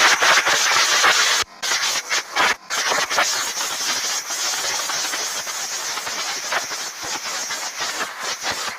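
Compressed air rushing out of a shop air hose as a loud hiss. It breaks off briefly twice in the first few seconds, then carries on as a steadier, somewhat quieter hiss.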